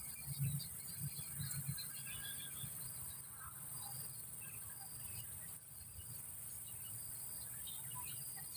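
Outdoor ambience of small birds chirping in short scattered calls over a steady high-pitched insect drone, with a few low thumps in the first couple of seconds.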